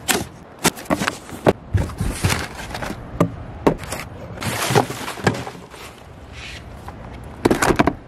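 A cardboard shipping box being unpacked by hand: the tape cut, the flaps pulled open and crumpled kraft packing paper rustling as product boxes are lifted out. It makes an irregular run of sharp crackles, taps and thuds, with a short cluster of louder knocks near the end.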